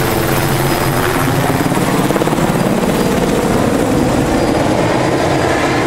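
Light helicopter flying low overhead and away, its rotor beating in a rapid, steady pulse with a thin high whine over it.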